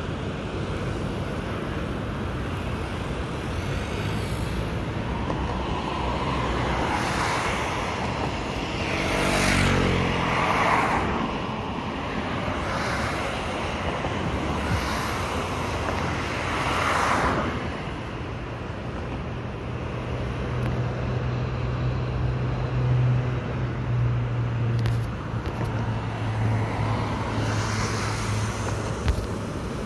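Steady motorway traffic noise with cars and trucks passing, a few louder pass-bys swelling and fading about a third and halfway through. In the second half a low steady hum builds as a freight train hauled by a Captrain locomotive approaches on the tracks.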